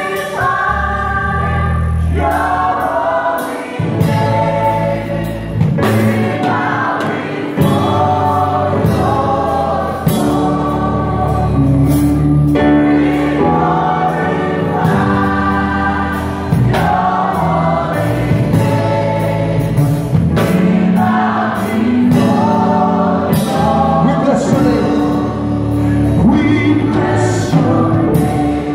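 Mixed choir of men and women singing a gospel praise song in parts, accompanied by keyboard with a steady bass line and a drum kit keeping the beat.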